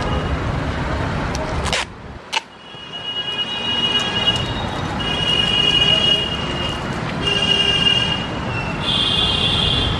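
Powered sealant gun laying a urethane bead along the edge of a windshield, whining steadily in four separate runs of about a second each as the trigger is held. Under it runs a steady workshop and traffic background. Two sharp clicks come about two seconds in.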